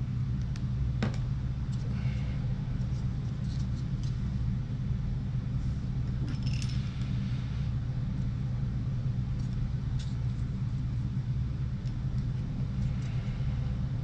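A steady low rumble throughout, with faint scattered clicks and crinkles of Teflon tape being wrapped onto small brass pipe fittings by hand.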